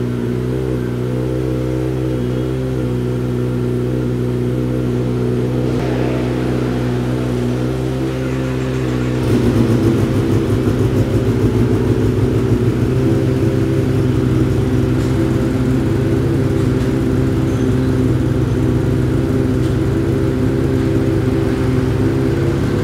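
Kawasaki ZX-25R's 250 cc inline-four on an Akrapovic full-system exhaust idling steadily. About nine seconds in, the Kawasaki ZX-10R's 1000 cc inline-four, also on an Akrapovic full system, takes over, idling louder with a rougher, pulsing note.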